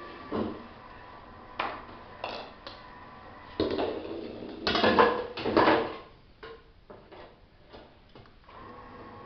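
A ball runs down a homemade mini skittle lane and knocks down the skittles, which go down with a loud clatter about five seconds in. Smaller mechanical clicks come before it, and scattered light knocks of pins settling follow.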